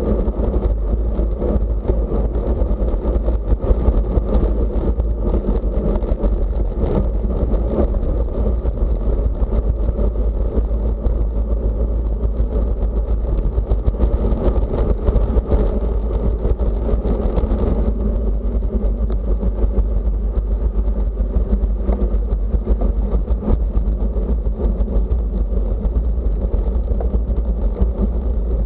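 Steady wind and road noise at race speed on a bicycle rider's microphone, a deep rumble with a rushing hiss that thins a little about two-thirds of the way through.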